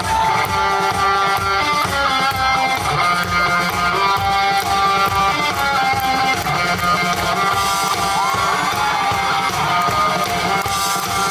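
Live band playing rock music: guitar over a steady drum-kit beat.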